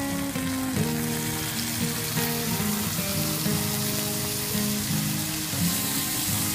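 Brown sauce poured onto a hot iron sizzle plate of meat, setting off a steady, loud sizzle. Background music with held plucked-guitar notes plays underneath.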